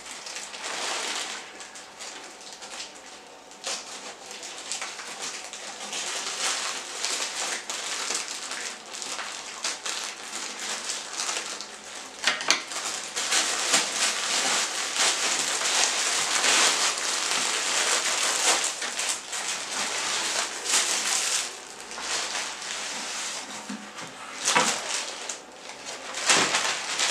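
White plastic courier mailer being cut open with scissors, then handled and rummaged through: continuous crinkling and rustling of the plastic with many sharp crackles.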